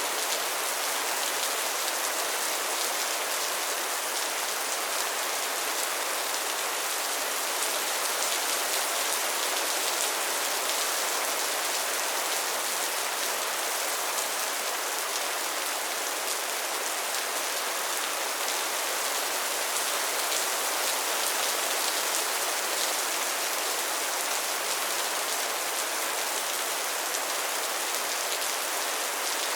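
Steady rainfall: an even hiss of rain with many small drop hits, holding level throughout with no thunder.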